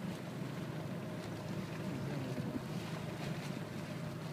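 Small boat's outboard motor running steadily at low speed, with water and wind noise over it.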